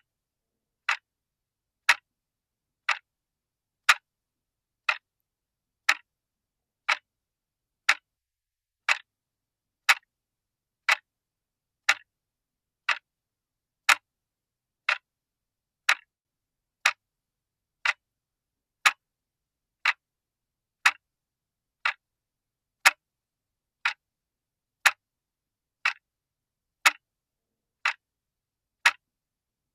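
Clock ticking steadily, one tick a second, with alternate ticks a little louder.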